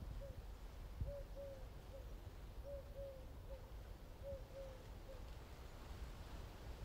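A bird's soft hooting call: a three-note phrase of two longer notes and a shorter one, repeated about every one and a half seconds, stopping about five seconds in. Under it a low wind rumble, with a dull thump about a second in.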